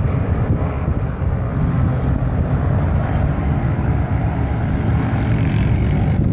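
Racing motorcycle engines running at speed around the circuit, a steady low drone.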